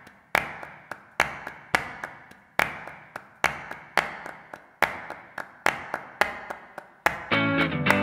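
Song intro of sharp percussive hits in a slow, uneven rhythm, each one ringing out before the next, with lighter taps between. Near the end the full band comes in with guitars.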